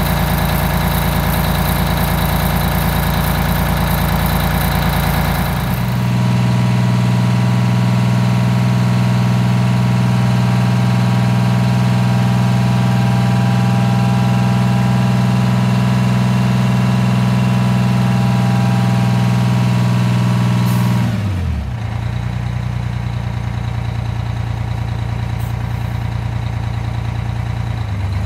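GM PD-4104 coach's Detroit Diesel two-stroke engine idling at a steady raised speed; about three-quarters of the way through the revs fall and it settles into a lower, slightly quieter idle.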